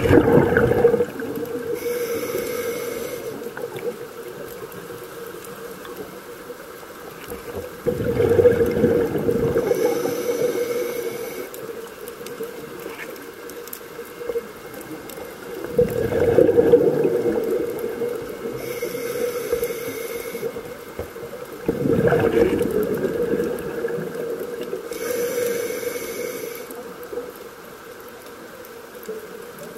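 Scuba diver breathing through a regulator underwater: a loud bubbling rush of exhaled air about every six to eight seconds, with a short, fainter hiss of inhalation between each. A steady hum runs underneath.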